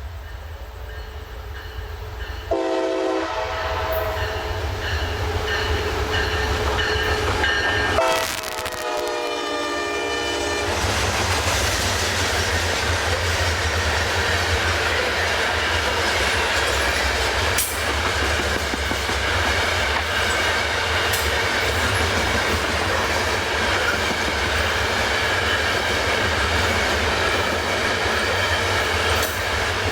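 Freight locomotive horn sounding twice, a short blast about two and a half seconds in and a longer one around eight seconds whose pitch bends, overloading the camera's built-in microphone. The freight train then rolls past with a steady rumble of wheels on rail and clickety-clack.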